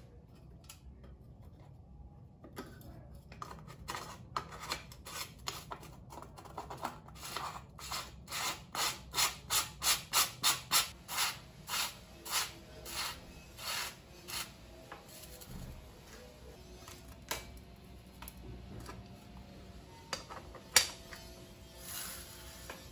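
C-Bear bottom bracket cup being threaded by hand into the bottom bracket shell of a steel bicycle frame: a run of short scraping strokes that come quicker and louder to about two a second, then thin out. Near the end there is one sharp metallic click.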